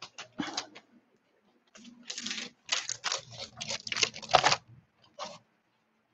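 Rustling and clattering as artworks and their packaging are handled and shuffled, in short bursts with a longer run in the middle.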